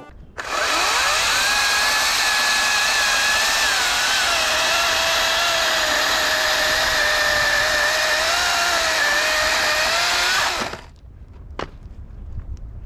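Ryobi 40-volt 18-inch brushless cordless chainsaw spinning up about half a second in and cutting through a log. Its whine drops in pitch about four seconds in as the chain loads in the cut, and the saw stops suddenly near the end.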